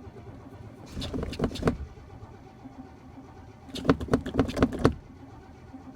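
The 1971 Oldsmobile Cutlass S's starter cranking the cold engine in two spells of about a second each, with a rapid chugging rhythm. The engine does not catch: a hard cold start.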